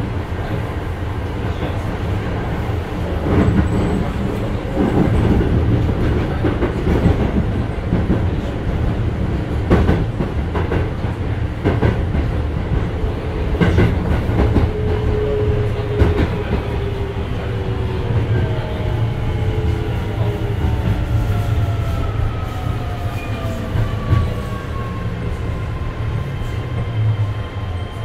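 Keio 7000 series commuter train heard from inside the car: a steady low rumble with wheels clacking over rail joints, then from about halfway the traction motors' whine, several tones together, falls steadily in pitch as the train slows.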